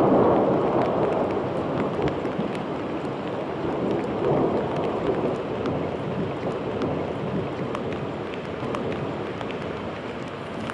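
Thunder rumbling and slowly dying away, swelling again about four seconds in, over falling rain with scattered sharp drop ticks.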